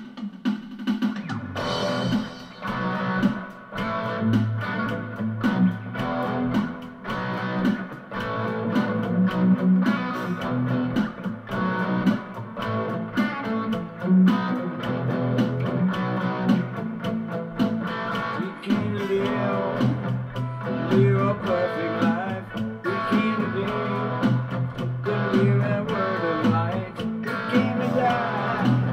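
Electric guitar playing an instrumental passage of picked notes and chords without singing.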